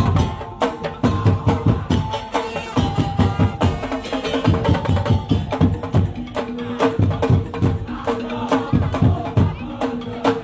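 Loud traditional percussion music: drums beating in a dense, steady rhythm under a held melodic line.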